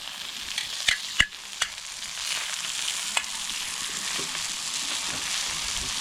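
Sausages sizzling as they fry, a steady hiss broken by a few sharp clicks in the first two seconds and one more a little after the middle.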